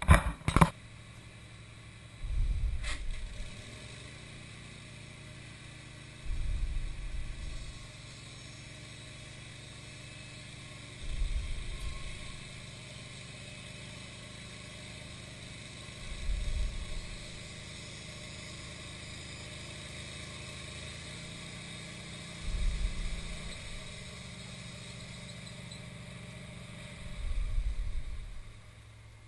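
Wood-Mizer LT15 bandsaw mill running steadily as it saws oak, with a low rumble swelling about every five seconds. Two sharp clacks come at the very start and a single click about three seconds in.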